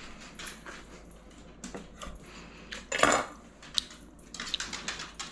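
Light clinks and taps of kitchen utensils on a wooden cutting board, with a brief louder sound about three seconds in and a quick run of small clicks near the end.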